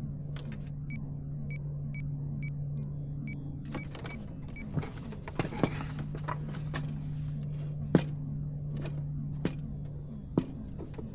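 Steady low electronic hum of the spaceship interior. Over it, a run of regular short electronic blips, about three a second, lasts for the first few seconds, as if counting the exercise in. Scattered sharp clicks and taps follow.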